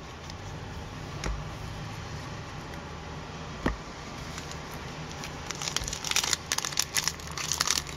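Crinkling of a hockey card pack's foil wrapper being handled, starting about two-thirds of the way in. Before that there is only a low room hum with a couple of soft taps.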